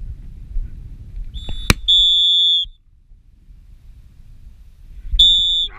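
A dog-training whistle is blown three times near the microphone: a short blast, a longer one about 2 s in, and another short blast near the end. A sharp click falls between the first two, and wind rumbles on the microphone throughout.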